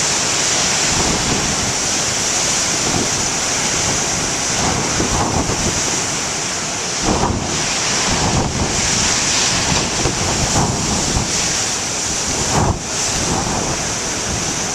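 Big ocean waves breaking in heavy surf, with a loud steady wash and several bigger surges, and wind buffeting the microphone.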